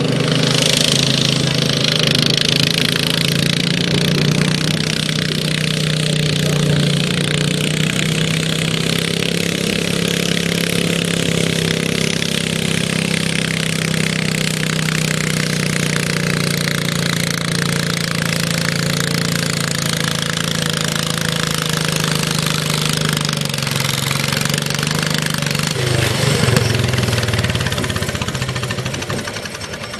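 Garden tractor engine running hard under load as it pulls a weight-transfer sled, a steady drone. About 26 seconds in the pitch drops with a brief surge, and the sound then fades.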